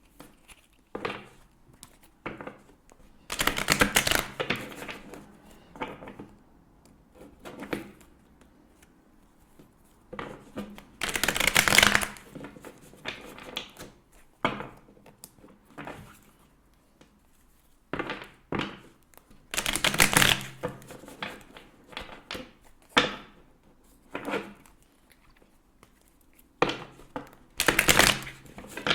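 A tarot deck being shuffled by hand: four bursts of rapid card clicks, each about a second long, with lighter card handling in between.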